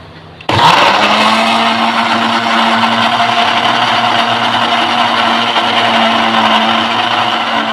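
Cosmos Trinity countertop blender switched on about half a second in, its motor running steadily with a constant hum as it grinds shallots, garlic, ginger and turmeric with water into a wet spice paste.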